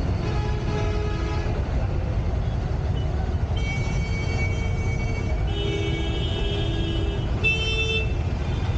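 Busy road traffic running as a steady low rumble, with vehicle horns honking about four times, each a held note of a different pitch; the last, near the end, is the shortest and sharpest.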